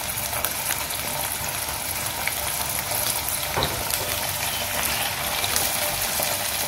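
Fish steaks sizzling as they shallow-fry in a little oil in a non-stick frying pan: a steady sizzle with small crackles. A faint knock a little past halfway as another steak is laid into the pan.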